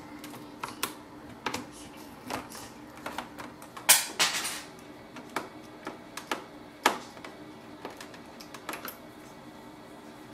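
Scattered small clicks and taps, a louder cluster about four seconds in: a screwdriver turning the screws that hold the ink tanks into the plastic frame of an Epson EcoTank printer.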